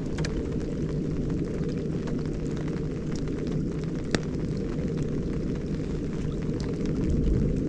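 A steady low rumble, with a single sharp click about four seconds in.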